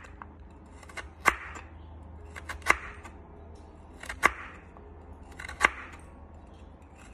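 Crinkle-cut knife slicing through a raw carrot and striking a wooden cutting board: four sharp chops, about one every second and a half.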